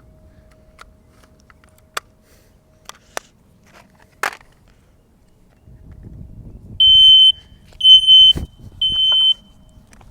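A smoke alarm sounds three loud, high-pitched beeps of about half a second each, with short gaps between them, starting about seven seconds in. This is the three-beep pattern of a smoke alarm going off. A few sharp knocks come before the beeps, and a thump falls during the second beep.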